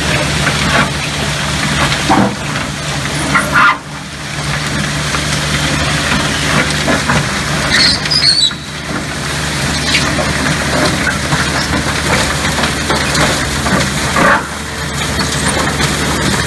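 Oyster shell processing machine running: a vibrating hopper and 16-foot auger conveyor feeding wet oyster shells into a hammer mill. It makes a steady low machine hum under irregular clattering and cracking of shells, and the sound dips briefly twice.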